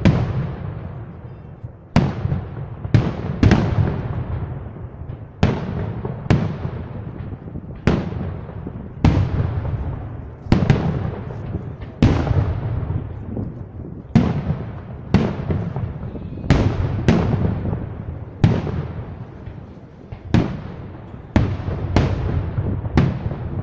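Aerial firework shells bursting one after another, roughly one a second. Each sharp bang trails off in a long fading echo.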